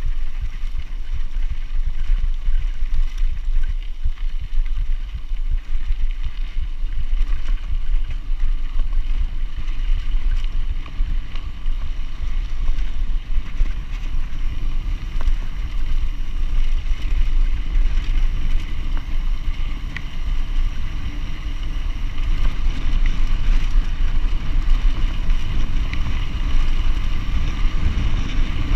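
Wind buffeting the microphone of a chest-mounted action camera on a mountain bike riding a gravel track: a loud, steady low rumble, with the faint rattle of tyres and bike over the loose gravel.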